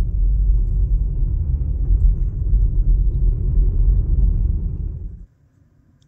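A car driving along a paved road: a loud, low, rough rumble that cuts off suddenly about five seconds in.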